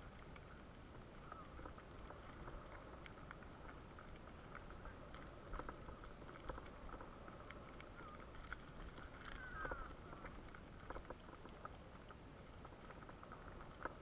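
Wheels rolling over a loose gravel track: a faint continuous crackle of stones with scattered sharp ticks, over a thin steady whine.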